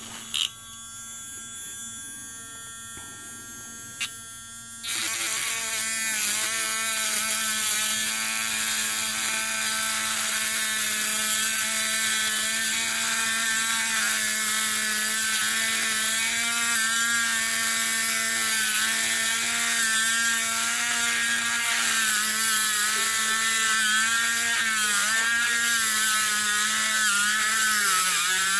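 Small handheld rotary grinder running with a steady high whine. About five seconds in it starts grinding the metal ring around a die-cast toy car's chassis rivet, which adds a harsh hissing grind. Its pitch sags now and then as the bit bears down.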